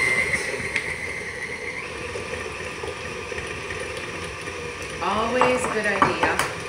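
Stand mixer beating cream cheese switched off, its motor whine fading over the first second or two. Near the end, a voice and a sharp tap as an egg is cracked.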